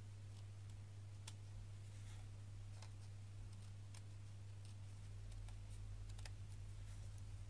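Faint, irregular snips and clicks of scissors trimming the excess fabric around a hand-sewn fabric heart, about one a second, over a steady low electrical hum.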